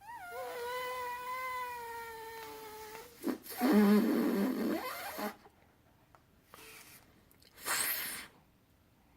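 A person making silly vocal noises: a long, slightly wavering, cat-like held tone for about three seconds, then a louder rough, raspy noise lasting about two seconds, and a shorter one near the end.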